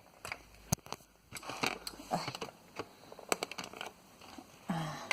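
Scattered clicks and short scraping sounds of a fan's plastic pedestal base and its screws being handled and worked as someone tries to screw them in. The screws don't fit and won't bite.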